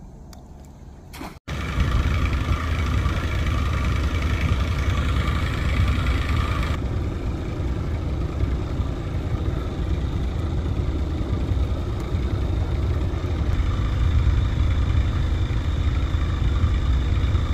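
Boat motor running steadily while the boat is under way, starting abruptly about a second and a half in after a click.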